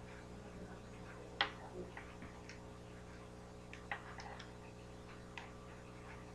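Faint, irregular small clicks and ticks of a steel cable-wire fishing leader and hook being twisted and handled by hand. The sharpest click comes about one and a half seconds in and another near four seconds, over a steady low hum.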